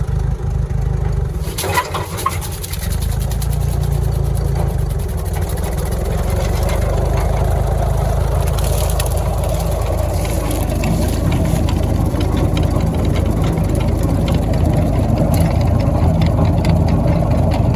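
1956 Ford 640 tractor's four-cylinder engine running with the PTO engaged, driving an old rotary cutter (bush hog) through a newly fitted overrun clutch. The sound dips briefly about two seconds in, then builds over the next few seconds as the cutter spins up, and holds steady.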